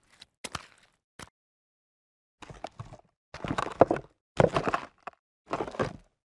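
Footsteps: a few quick, short steps end about a second in. After a brief pause a new series of slow, heavy steps begins, about one a second, each drawn out over more than half a second.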